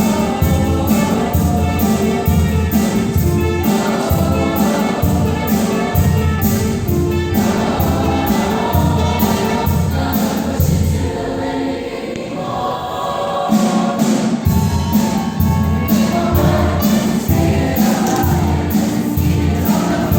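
Choir singing in harmony over instrumental backing with a steady driving beat. The beat and bass drop out for a few seconds about halfway through, leaving the voices, then come back in.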